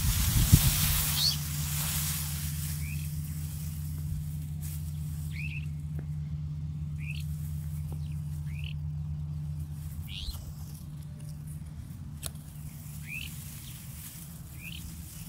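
A small bird chirping outdoors, short single chirps repeated roughly every second, over a steady low hum. A burst of rustling noise fills the first couple of seconds.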